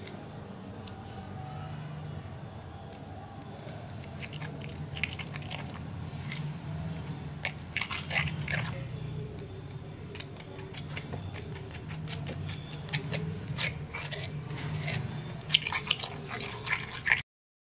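A small metal spoon stirs and scrapes a thick, wet herb-and-yoghurt marinade paste in a small clay pot. It makes repeated short scrapes and clicks against the pot over a low steady hum, with the scrapes coming more often and louder near the end.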